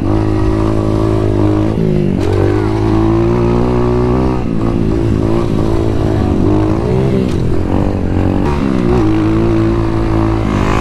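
Kayo 125cc dirt bike engine being ridden hard, revving up and dropping back several times as the throttle opens and closes and the gears change.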